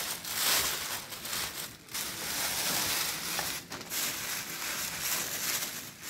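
Hands kneading soil and water into mud inside a plastic sheet: the plastic crinkles and rustles and the damp soil crunches as it is worked, in a continuous rustle with two brief pauses.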